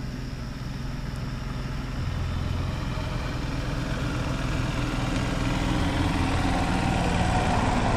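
Golf carts coming along the road, the hum of their motors growing steadily louder as they approach.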